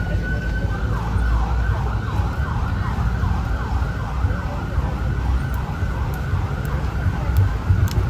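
Electronic siren held on a high note, switching about a second in to a fast yelp of falling sweeps, about three a second, over a steady low rumble.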